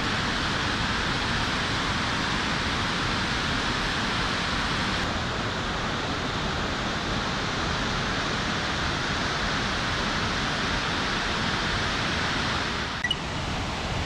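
Shiraito Falls, a curtain of many thin streams of spring water pouring over a cliff: a steady, even rush of falling water, briefly quieter about a second before the end.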